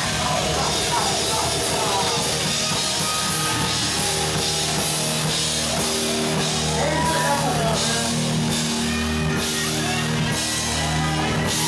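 Live rock band playing: electric guitars holding chords over a drum kit, with cymbals struck at a regular beat.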